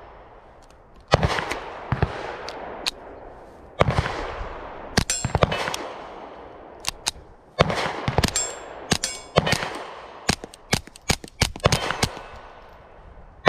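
Suppressed .22 LR pistol, a Ruger MKIV 22/45 Lite with a Dead Air Mask suppressor, firing subsonic rounds: a series of sharp cracks, some spaced a second or so apart and others in quick strings of several shots. A brief high ringing follows a couple of them.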